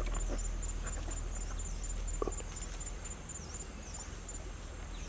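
Bare feet walking through grass over stones, with a few soft knocks and rustles. Behind it runs a steady high chirping that repeats a couple of times a second, over a low rumble.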